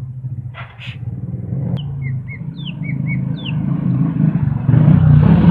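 A motor vehicle engine running nearby, its low hum growing steadily louder toward the end, with a few short, high bird chirps and quick downward whistles in the middle.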